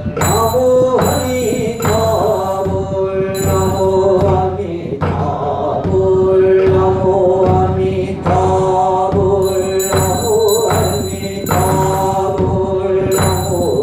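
Korean Buddhist yeombul chanting: a voice intoning long, held, slowly sliding notes over a steady knocking beat.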